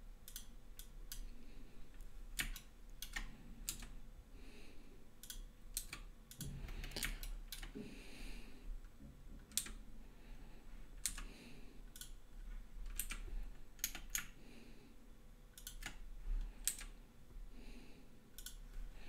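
Computer keyboard keys and a mouse button clicking irregularly, single clicks and quick pairs scattered with short pauses between them.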